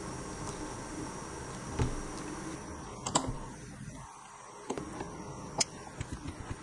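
Flat-blade screwdriver and steel screws on a Union cylinder nightlatch being screwed to a door: a soft knock, then a cluster of sharp metallic clicks about three seconds in and two more single clicks later, over a steady low hiss.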